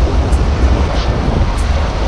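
Sportfishing boat underway: a steady low engine rumble and the rush of churning wake water, with wind buffeting the microphone.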